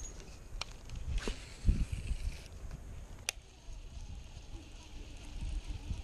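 Scattered knocks and clicks: a low thump about two seconds in is the loudest, and a single sharp click follows a little after three seconds.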